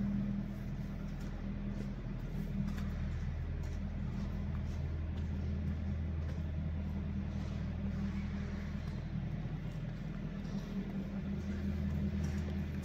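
Rotary drum dryer line of an organic fertilizer plant running, a steady low machine hum with faint light ticks over it.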